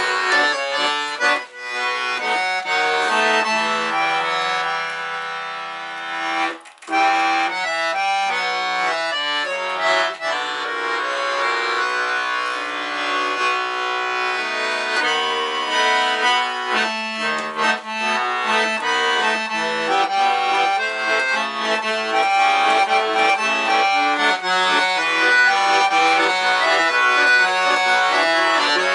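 Weltmeister button accordion (bayan) playing a wartime song, a melody over chords, with a short break about seven seconds in.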